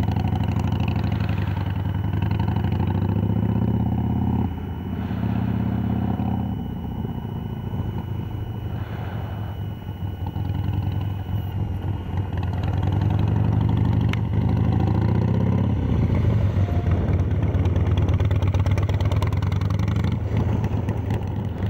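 2005 Harley-Davidson Sportster's V-twin through Screamin' Eagle II pipes with Thunder Monster baffles, ridden around tight corners. The exhaust note rises in pitch as the bike pulls, drops off suddenly as the throttle closes, and pulls up again several times.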